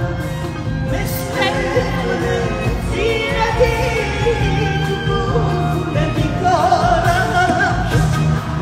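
Live pop band playing while a singer sings over it, the voice holding wavering notes.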